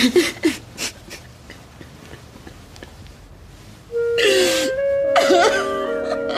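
A woman crying: gasping sobs at first, then quieter sniffling breaths, and from about four seconds in louder wavering sobs. Sustained music swells in under her sobs at the same point.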